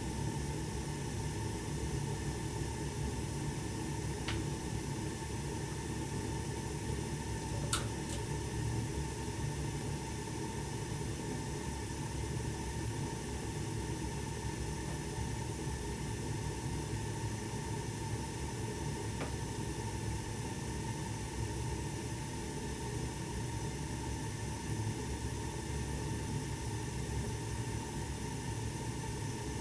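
1988 Snyder General gas furnace running, a steady whooshing hum with low rumble. A few brief clicks stand out, the loudest about eight seconds in.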